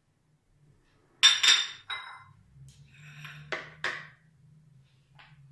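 A spoon clinking against a mixing bowl while a yogurt-and-spice marinade is stirred. Three quick ringing clinks come about a second in and two more around three and a half seconds in, with softer scraping between.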